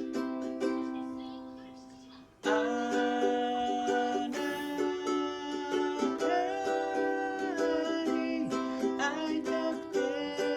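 Background music. The first notes die away, and a louder passage comes in a little over two seconds in.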